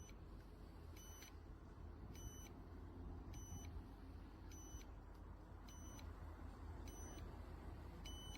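Short, high electronic beep repeating about once a second, faint over a steady low rumble.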